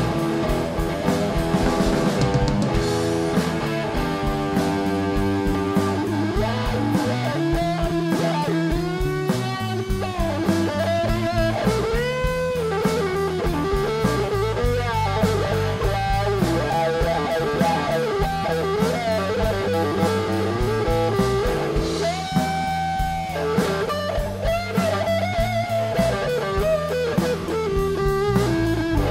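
Live blues-rock band playing an instrumental passage: an electric guitar leads with sustained, bent notes over bass guitar and a drum kit.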